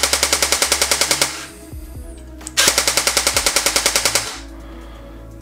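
Jing Gong M4 CQBR airsoft electric gun with a stock V2 gearbox, dry-firing on full auto with no magazine on a 7.4 V battery. It gives two bursts of rapid, even mechanical clicking at roughly a dozen cycles a second, a rate that is not high. The first burst stops about a second and a half in, and the second runs from about two and a half to four and a half seconds in.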